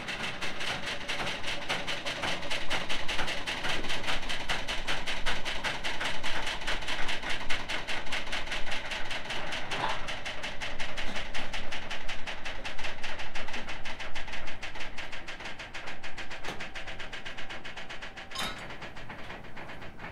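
Hydraulic pump running steadily with a fast, even pulsing while hydraulic cylinders lower the deck of a Wisdom Himalaya carnival ride, with a single knock near the end.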